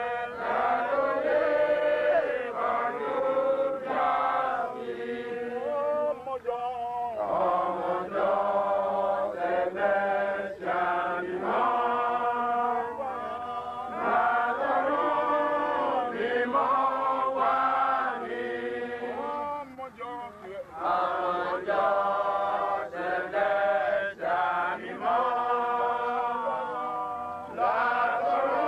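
A prayer chanted in a steady, rhythmic cadence by voices intoning phrase after phrase, with short breaks between phrases.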